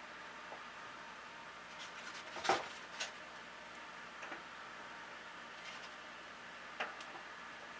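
A few faint handling knocks and clicks over a steady low hum. The loudest knock comes about two and a half seconds in, with smaller ones just after it and near the end.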